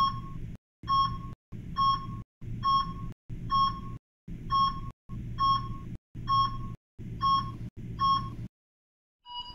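Ten short electronic beeps, about one a second, marking a countdown from nine to zero. Each beep is a single mid-pitched tone over a brief low hum that cuts off between beeps.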